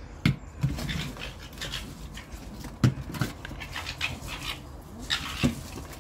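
Red fox cubs whining and squeaking in short high calls, with three sharp thuds about a third of a second, three seconds and five and a half seconds in.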